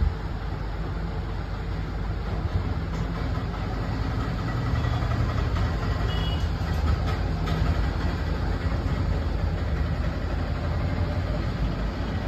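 Hot air rework gun blowing steadily, a low rush of air that grows a little louder about four seconds in, as a new micro-USB charging port is soldered onto a phone's circuit board.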